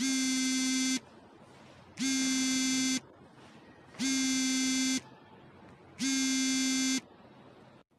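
Phone ringing with an incoming call: a steady buzzing tone that sounds for about a second, then stops for about a second, four times over.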